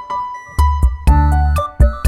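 Upbeat electronic background music: synthesizer and keyboard melody over a heavy, rhythmic bass beat.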